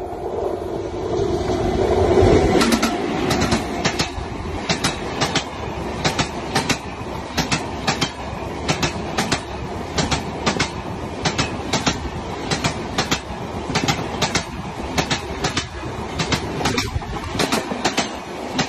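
An Indian Railways express passing at speed: the rush of the WAP-7 electric locomotive builds to a peak about two seconds in. After that the LHB coaches' wheels click over the rail joints in a steady, rapid rhythm of paired clicks.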